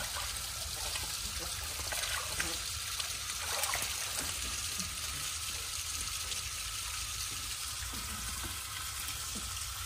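Water running and trickling into a small pool, a steady hiss with faint splashes.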